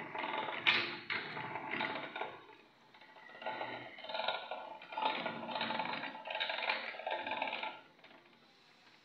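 Commercial idiyappam maker's press mechanism running, a mechanical clatter in repeated spells, with a sharp click under a second in. It falls away about eight seconds in.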